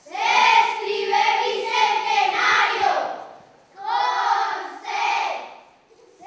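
A group of children's voices in unison, in two phrases: a longer one of about three seconds, then after a short pause a second of about two seconds.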